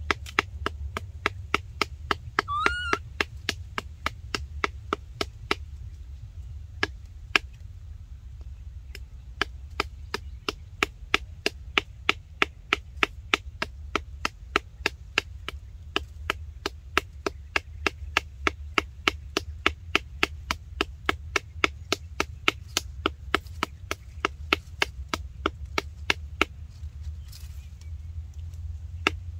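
Steady, rhythmic chopping by hand, about three sharp strokes a second, over a steady low rumble. A short rising squeak, from the baby monkey, about two and a half seconds in.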